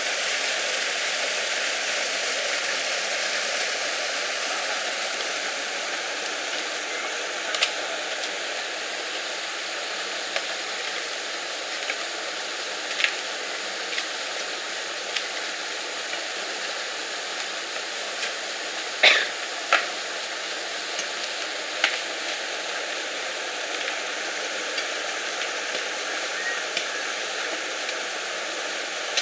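Steady rush of stream water flowing over rocks, with a few short, sharp knocks here and there, the loudest about two-thirds of the way through.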